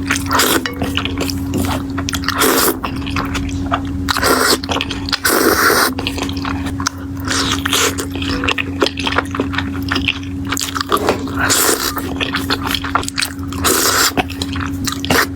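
Close-miked eating: wet chewing, slurping and lip smacks, many short sharp clicks and squelches in quick irregular succession, over a steady low hum.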